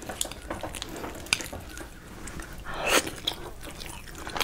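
Chopsticks clicking against a ceramic bowl while picking at and pulling apart sauce-covered sticky rice, in small scattered clicks with one louder, longer noisy sound about three seconds in.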